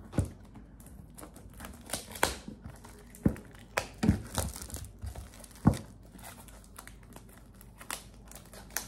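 Plastic shrink-wrap crinkling and tearing as it is cut with scissors and pulled off a cardboard trading-card box, with several sharp clicks and knocks as the box is handled.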